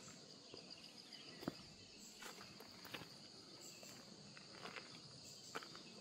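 Quiet forest ambience: a steady, high-pitched insect drone, with a few faint, scattered ticks.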